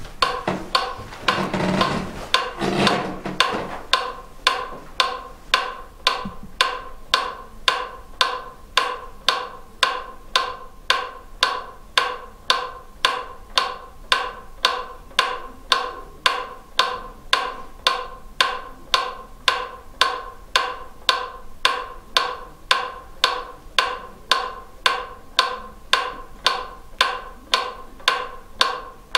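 Steady, even ticking at about two ticks a second, each tick a sharp click with a short ringing tone, from a small device set on a stair. Mixed rustling and handling noise in the first few seconds, before the ticking settles in alone.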